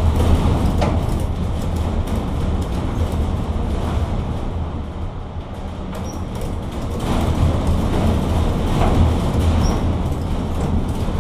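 A steady low mechanical hum, with a few short sharp knocks over it.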